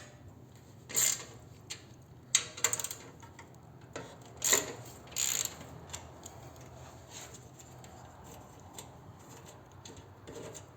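Hand ratchet wrench with a half-inch socket clicking in several short bursts as the exhaust hanger bolts are loosened, then quieter near the end.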